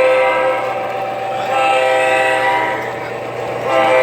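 Proto-Sound 2.0 sound system of an MTH model Amtrak F59PHI locomotive sounding its recorded multi-chime air horn in blasts: one ending about half a second in, another in the middle, and a third starting near the end.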